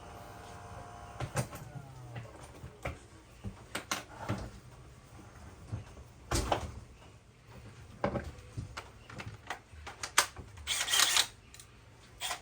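Scattered knocks, bumps and clicks of objects being handled, with a louder rustling scrape near the end.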